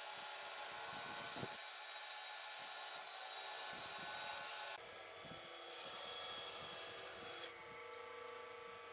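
Band saw ripping lengthwise through a rough log, the blade cutting steadily through the wood over the motor's hum, with a few low knocks as the log is pushed along the table. The sound shifts abruptly about five seconds in and again near the end.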